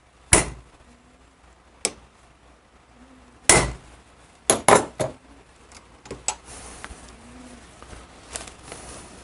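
Hammer striking a rivet-setting die to set brass rivets holding a new clutch hub lining on a 1948 Harley-Davidson Panhead clutch hub. About six sharp strikes over the first five seconds, the loudest about three and a half seconds in, then a few lighter taps and clinks.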